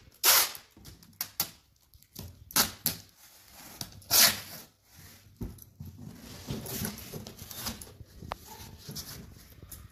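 Brown packing tape being pulled off its roll and stuck onto cardboard boxes, in a series of short rips with quieter rustling in between.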